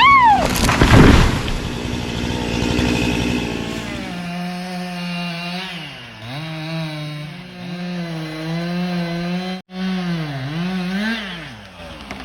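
Stihl MS 261 two-stroke chainsaw running at high revs while cutting a large tree. It revs up and down at the start, then holds a steady high note that sags several times as the bar loads in the cut and recovers.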